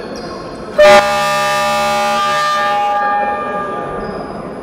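Basketball scoreboard horn sounding once, about a second in: a loud, steady, buzzy blare lasting about two seconds, the signal that stops play.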